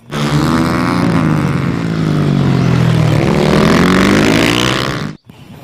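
Motocross dirt-bike engine revving: its pitch sinks and then climbs again, and the sound cuts off suddenly about five seconds in.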